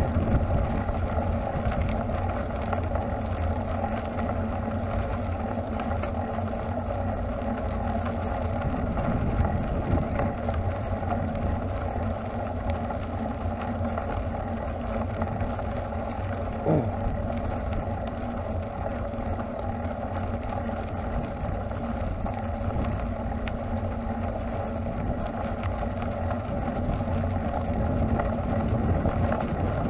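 Steady riding noise from a camera on a moving bicycle: wind on the microphone and tyres rolling over a paved path. A brief rising squeak comes about seventeen seconds in.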